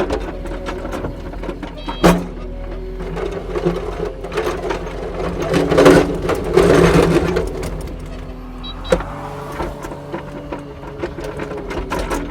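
Kubota SSV65 skid steer's diesel engine running under working load, its pitch shifting as the machine works, with a louder stretch about six seconds in and two sharp knocks, about two seconds in and about nine seconds in.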